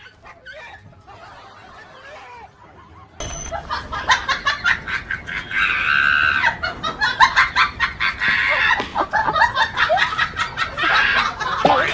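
Faint for the first three seconds, then a hen with her wings spread over her chicks clucks and squawks in defence, and people laugh over it.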